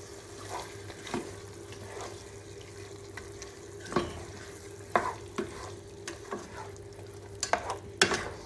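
A wooden spatula stirs chicken pieces in a non-stick pot, knocking and scraping against the pan at irregular moments, loudest about 4, 5 and 8 seconds in. Under it runs a soft frying sizzle as the chicken and ginger-garlic paste cook over low heat.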